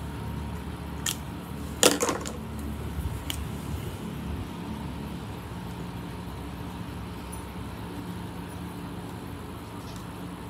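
Steady low hum with a few light clicks and a brief squeak in the first few seconds, from a dry-erase marker being handled and written with on a whiteboard.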